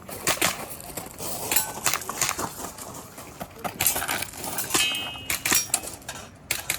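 Airsoft pistol firing a string of rapid shots in irregular clusters during a practical shooting stage, with metallic clinks of BBs hitting steel targets; one plate rings briefly about five seconds in.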